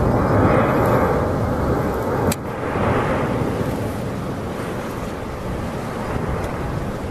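Steady rumbling roar of an erupting volcano, the Cumbre Vieja on La Palma, with a sharp click about two seconds in.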